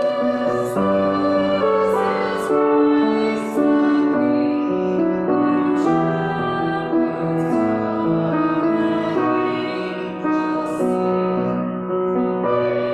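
A woman singing a slow carol with grand piano accompaniment, sustained notes moving in a steady hymn-like phrase.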